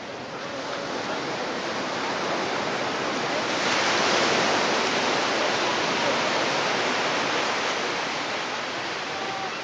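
Surf washing up on a beach: a steady hiss of breaking water that swells about three and a half seconds in, then slowly eases.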